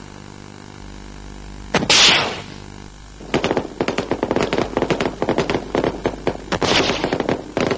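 Battlefield gunfire: a single loud blast about two seconds in, then rapid, continuous automatic-weapon fire from about three seconds in, after a low hum at the start.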